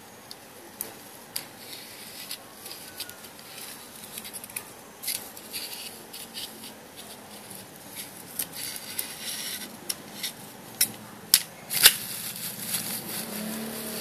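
Thin tin-can sheet metal and a metal-mesh ball being handled and fitted together by hand: irregular light clicks, taps and scrapes. Two sharp clicks come close together near the end.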